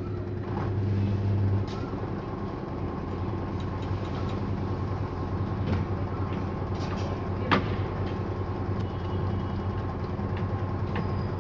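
Washing machine spinning at 800 rpm, a steady low hum with a shaking rattle, vibrating hard because it stands without anti-vibration pads. A single sharp knock comes about seven and a half seconds in.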